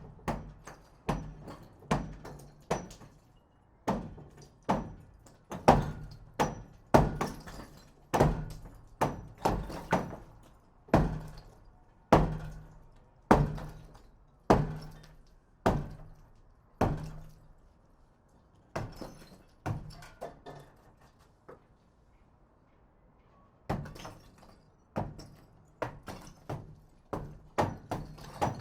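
Hammer blows struck repeatedly in an uneven rhythm, about one to two a second, each a sharp knock with a short ring. The hammering stops for a few seconds about three quarters of the way through, then resumes.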